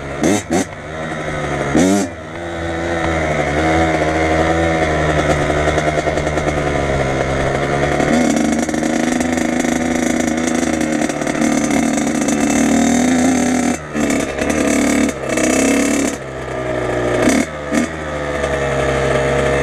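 Dirt bike engine running at part throttle on the mounted camera's bike as it rides slowly, with sharp throttle blips near the start and about two seconds in. Several quick chops and surges of throttle come in the last six seconds, and the revs fall away at the very end.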